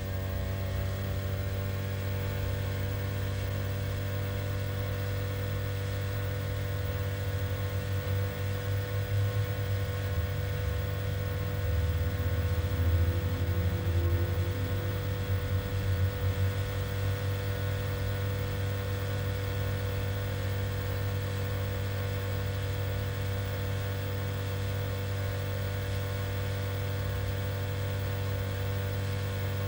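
Old vacuum cleaner motor, run through a variable transformer, driving air up a tapered tube and giving a steady deep hum; it grows louder and wavers for several seconds in the middle.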